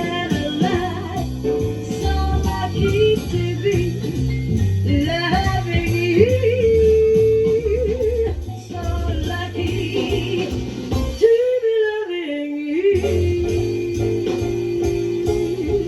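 A jazz ballad recording playing through a 300B single-ended vacuum-tube power amplifier and an Altec 604-8G loudspeaker, picked up in the room by a phone's microphone. A melody line is held and bent over bass and chords; about eleven seconds in, the bass drops out briefly before a long held note.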